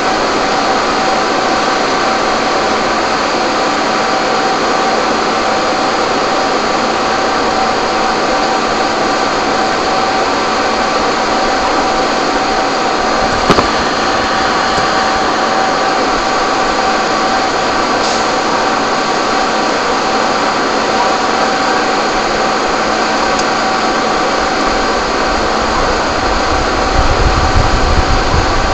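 Fire engines' diesel engines and pumps running steadily to feed the hoses: a loud, even drone with a constant hum. A single sharp click comes about halfway, and a low rumble swells in near the end.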